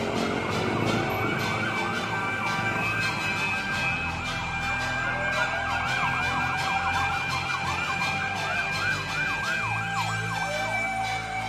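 Fire truck sirens in a fast yelp, rising and falling several times a second. Now and then a slower wail swoops down underneath, and steady tones are held throughout.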